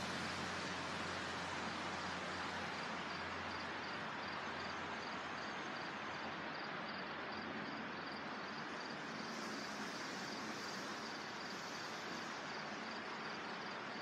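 Steady rushing of wind through leafy trees, with a high-pitched insect chirp pulsing about twice a second over it.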